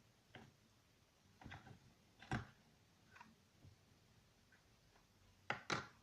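Scattered light taps and clicks, irregular, as of small objects being handled: a few soft ones, one louder about two seconds in, and the two loudest close together near the end.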